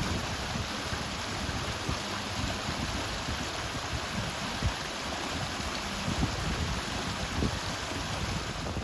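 Water bubbling and rushing steadily, like a flowing stream, in the cold reservoir.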